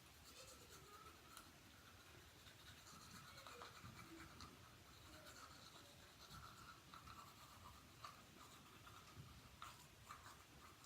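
Faint scratchy scrubbing of a toothbrush on teeth, in uneven strokes that come and go.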